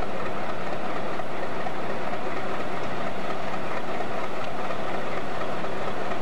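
General Electric U12 diesel locomotive engine running steadily at idle.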